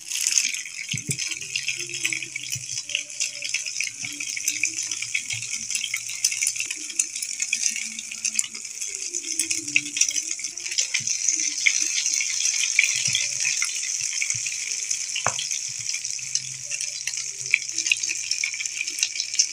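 Egg-dipped bread slices frying in hot oil on an iron tawa: a dense sizzling and crackling that starts suddenly as the first slice goes into the oil and then keeps on steadily.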